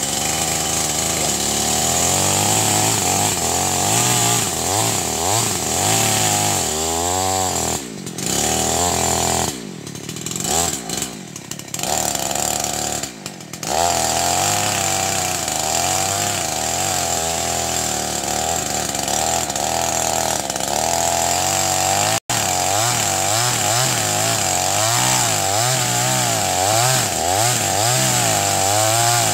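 Chainsaw running at high revs and cutting into an agarwood tree, its engine pitch wavering under load. It eases off several times near the middle of the cut, then runs on steadily.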